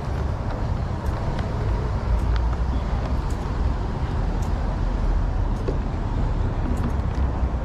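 Street traffic noise: passing cars make a steady, even rumble, with a few faint ticks on top.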